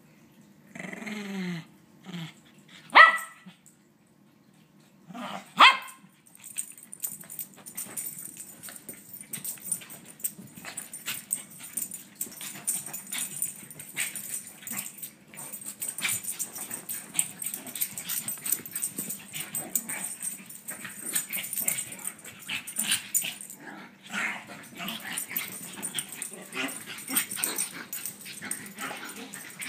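Two small dogs, one a chihuahua, tussling: a low growl at the start, two sharp barks a few seconds in, then a long stretch of scuffling and scrabbling on carpet with occasional small vocal noises.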